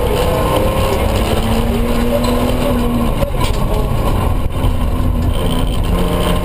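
Toyota pickup rally truck heard from inside its cab at speed on a dirt stage: the engine runs hard, its pitch shifting as the revs change, over a steady heavy rumble of tyres and road noise.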